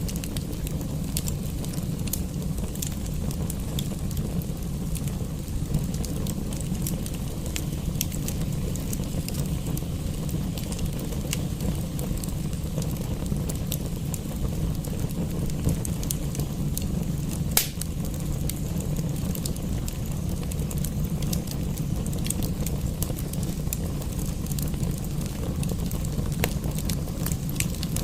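Wood fire in a fireplace crackling, with frequent small pops over a steady low rumble and one louder pop a little past halfway.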